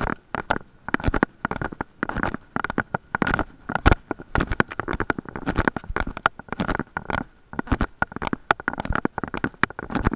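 Handling noise from a handheld camera carried at a walk: rustling and knocking that comes in bursts about twice a second with the walker's steps on a concrete path.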